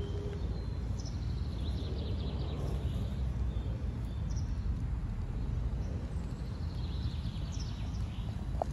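Outdoor ambience: a steady low rumble with faint bird chirps now and then.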